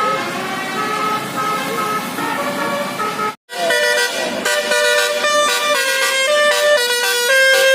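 Multi-note basuri (telolet) musical horn. The first three seconds are a noisy stretch with a high horn note that sounds on and off; after an abrupt break of silence, the horn plays a loud tune of held notes stepping up and down in pitch.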